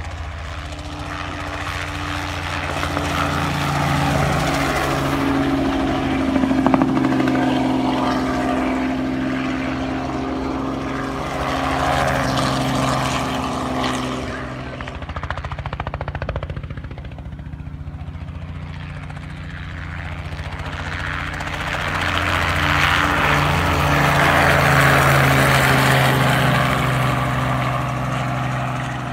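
A small two-bladed crop-dusting helicopter flying low passes, its rotor and engine running steadily. It grows louder twice as it comes near, about a fifth of the way in and again near the end, and fades somewhat in between.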